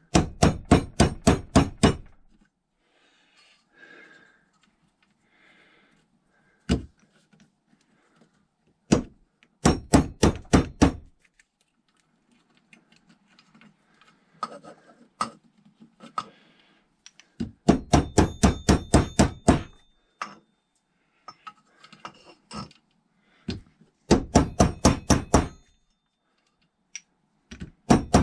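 Metal seal driver tapping a new oil seal into a 2007 Suzuki GSX-R750 upside-down fork tube, working round the seal to seat it. The tapping comes in four quick runs of sharp taps, about five a second, with a few single knocks between them.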